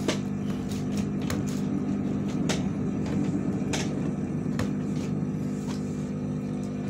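Steady hum from electric bench equipment at a repair bench, with small sharp clicks and taps scattered through it, about one every second, from handwork on the console's circuit board.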